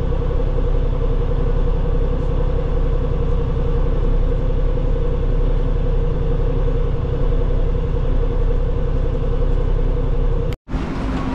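Steady engine and road rumble heard from inside a moving road vehicle, with a constant hum over it. The sound cuts out abruptly for an instant near the end.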